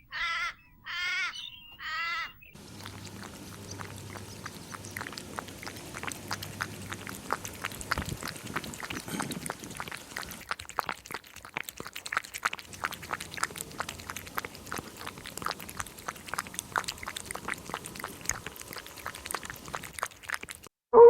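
Three short, harsh animal calls in quick succession, then a long stretch of dense, irregular clicking that cuts off just before the end.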